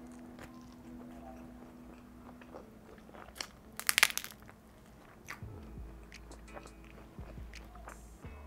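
A close-miked bite into crisp pizza crust: a loud burst of crunching about four seconds in, with softer crunches and chewing clicks scattered around it.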